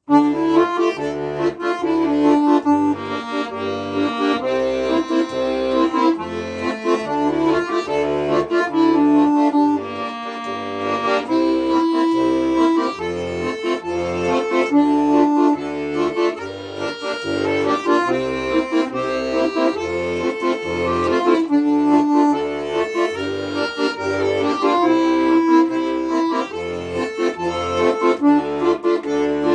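Accordion playing an instrumental passage: a melody of held notes over a steady, rhythmic bass accompaniment.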